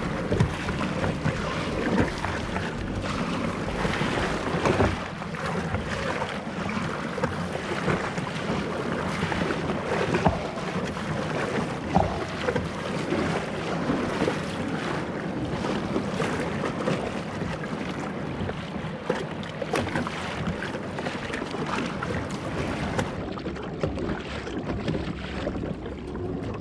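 Kayaks pushing out through small surf: a steady rush of waves and moving water, with irregular splashes of water against the hull and paddle blades.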